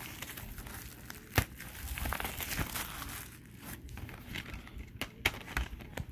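Clear plastic shrink-wrap on a DVD case crinkling and tearing as it is pulled off by hand, with a few sharp clicks.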